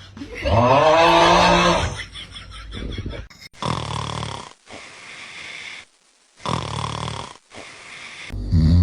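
A man snoring: a loud, drawn-out snore that rises and falls in pitch near the start, then a rattling stretch and several shorter snores that start and stop abruptly, with another loud snore beginning near the end.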